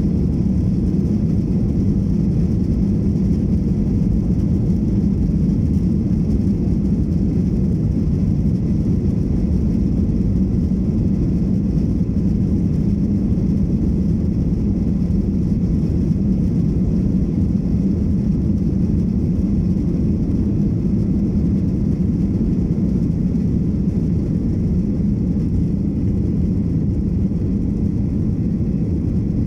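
Cabin noise inside a Ryanair Boeing 737-800 during the takeoff roll and liftoff: the jet engines at takeoff thrust together with the rumble of the wheels on the runway, a loud, steady, low rumble.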